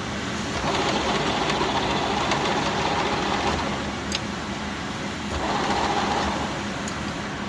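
1K62 screw-cutting lathe running: a steady mechanical drone with a low hum, and two louder, higher-pitched stretches of noise, the first lasting a few seconds from about a second in, the second briefly near six seconds.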